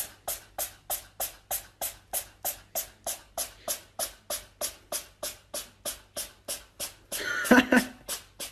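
A steady run of sharp clicks, about four a second, like a beat. Near the end comes a louder, brief cry.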